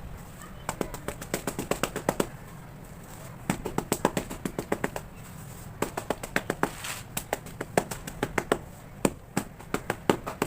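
Sharp tapping on hardened cement cakes, in quick runs of several taps a second with short pauses between.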